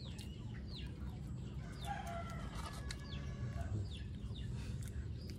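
Chickens clucking, with a rooster crowing once from about two seconds in, over a steady low background rumble.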